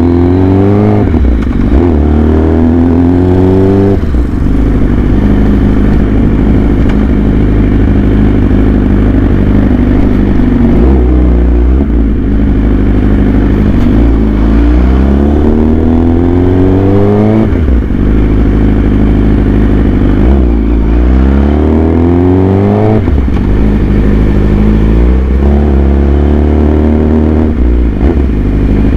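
Yamaha R6's inline-four engine through an SC Project aftermarket exhaust, revving: three times the pitch climbs over a few seconds and then falls away, with steadier running between.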